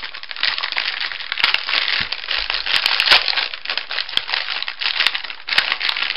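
Shiny plastic biscuit wrapper crinkling and crackling as it is peeled open and folded back by hand, with many sharp crackles throughout.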